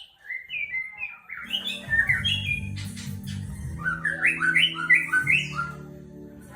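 White-rumped shama (murai batu) song in two quick phrases of short, rapidly repeated chirping notes. A low steady hum runs under the song from about a second and a half in.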